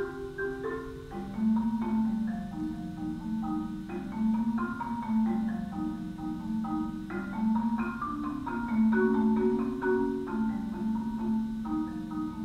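Recorded solo marimba played with four mallets: held low notes under a higher melody of shorter notes.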